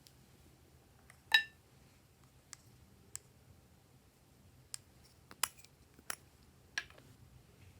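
Glossy slime being worked by hand, giving scattered sharp clicks and pops, with one louder, briefly ringing click about a second in and a cluster of clicks in the last few seconds.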